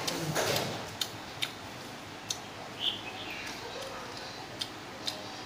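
Metal spoon clinking and scraping against a stainless steel basin of rice and vegetables as it is stirred and scooped: a soft scrape at the start, then about half a dozen sharp, separate ticks.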